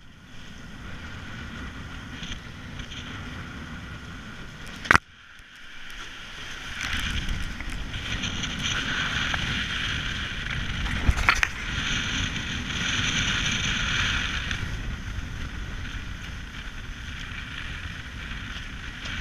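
Wind buffeting the microphone and water rushing past the hulls of a racing catamaran under sail, growing louder and hissier for several seconds in the middle. A single sharp knock about five seconds in, and a smaller click a few seconds later, from the boat's fittings.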